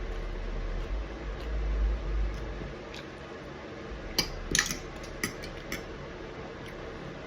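Cutlery clicking against a plate during a meal: several light, sharp clicks between about four and six seconds in, over a steady low hum.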